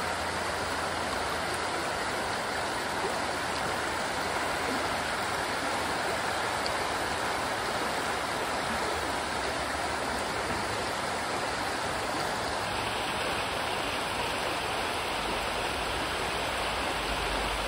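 Shallow rocky creek flowing over riffles: a steady, even rush of water.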